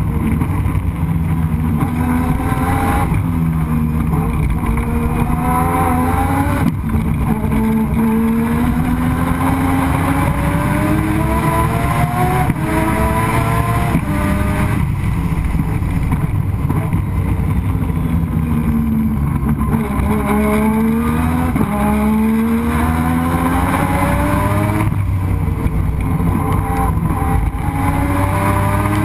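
Turbocharged 20B three-rotor rotary engine of a Mazda RX-7 race car under hard acceleration, heard on board, its pitch climbing in each gear and dropping back at every gear change, over a heavy low rumble. The engine is running on reduced boost, about 8 psi instead of 15, after a boost loss.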